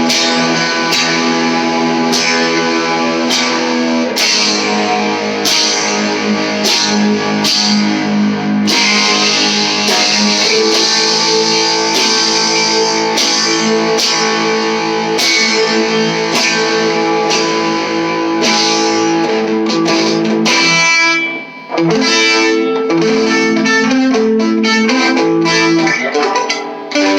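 Electric guitar played through a small all-tube amp with a little overdriven grit, chords struck in a steady rhythm. The tone grows brighter and grittier as the guitar's volume and tone knobs are rolled back and forward; about 21 seconds in the playing briefly drops out, then comes back with busier strumming.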